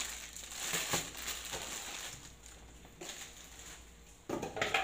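Clear plastic bag crinkling as a laptop power adapter and its cord, wrapped in it, are handled and lifted out of a cardboard box. The crinkling is busiest in the first two seconds, quieter after that, with a louder burst of handling noise near the end.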